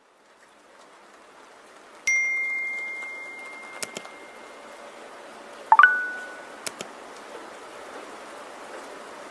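Two clear ringing dings over a steady hiss of rain. The first, about two seconds in, is high and rings on for a couple of seconds; the second, a few seconds later, is louder and lower, with a few light clicks in between.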